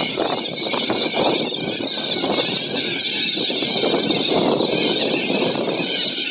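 A large mixed flock of galahs and little corellas calling in flight, a dense, continuous chorus of many overlapping harsh screeches.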